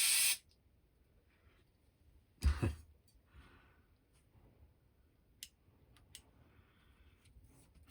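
A short hiss of a spray blast into the carburettor at the start, then a dull knock about two and a half seconds in and a few light clicks as the small carburettor parts are handled.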